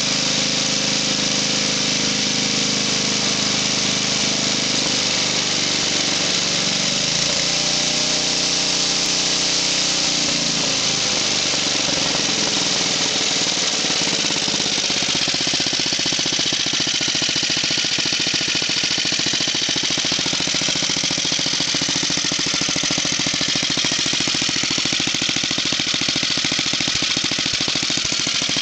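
Tecumseh HS40 4 hp single-cylinder four-stroke engine on a snowblower, running steadily. Its speed shifts between about seven and eleven seconds in, after which the individual firing pulses come through as a rapid, even chatter.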